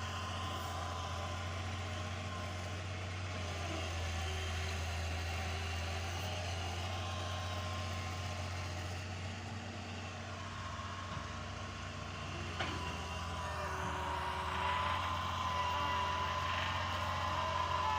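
Excavator's diesel engine running steadily with a deep drone, a thin whine above it that grows stronger in the second half. There is one sharp click about twelve seconds in.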